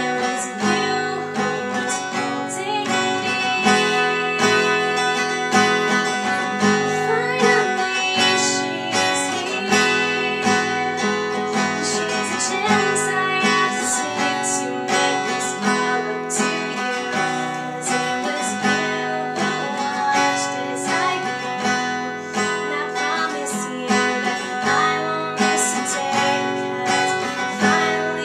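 Steel-string acoustic guitar strummed in a steady rhythm, with a young woman singing along.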